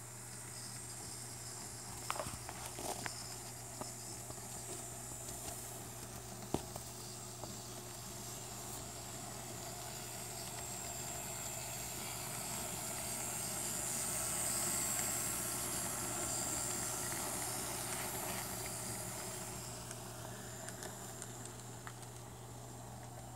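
N scale model freight train running on the layout's track: a hissing running noise that swells as the train passes close, loudest about halfway through, then fades. A few light clicks come about two to three seconds in, and one sharp click about six seconds in.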